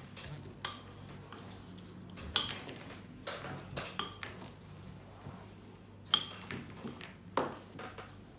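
Wooden spoon knocking and clinking against a glass bowl while stirring chopped fruit salad: a handful of irregular knocks, the two loudest with a brief glassy ring.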